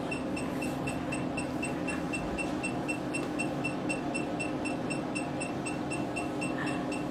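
Facial laser machine pulsing, with short high beeps repeating evenly several times a second over a steady low hum from the unit.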